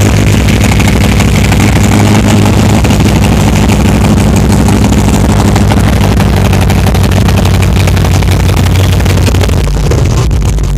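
De Tomaso Pantera's Ford V8 running loud and steady with a deep, even note; about ten seconds in the note drops lower.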